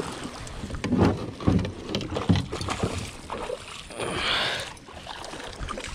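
Knocks and clatter against a plastic kayak as the landing net is grabbed. About four seconds in comes a splash of water as the net goes in after a hooked bass.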